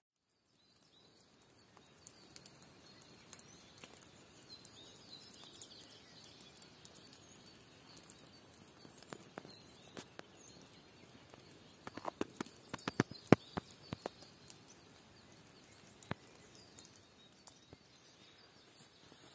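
Quiet open-air ambience in a wet, foggy meadow: a low steady background with scattered light ticks and taps, thickening into a run of sharper clicks about twelve to fourteen seconds in.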